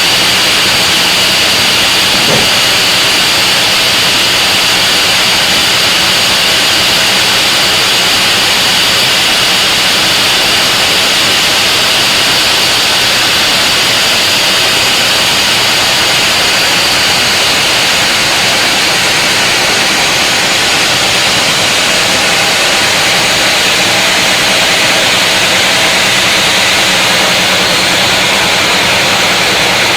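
Large wood saw cutting steadily through a big mahogany log: a loud, even rushing noise that keeps on without a break.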